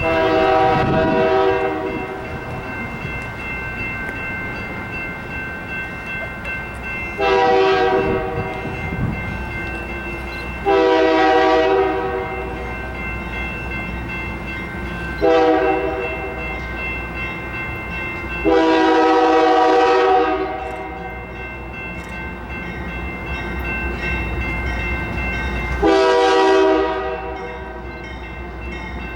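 Union Pacific freight locomotive's air horn sounding six separate blasts of about one to two seconds each. Under the blasts runs the steady low rumble of the diesel engine and the rolling train.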